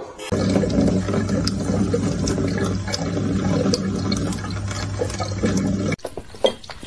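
Water running steadily from a kitchen tap, starting just after the opening and cutting off abruptly about a second before the end.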